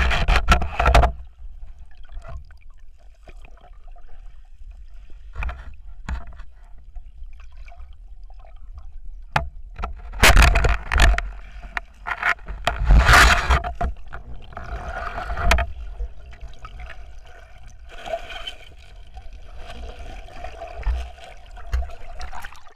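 Muffled water noise heard through an underwater camera as a spearfisher moves among river rocks: a steady low rush with louder surges of water about ten, thirteen and fifteen seconds in, and a faint steady hum.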